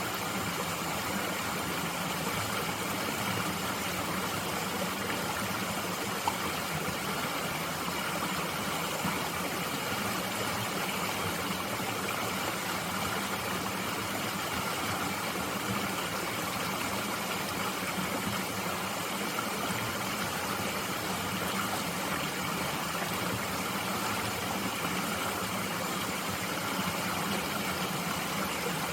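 Steady, unbroken rush of flowing water in a mountain stream.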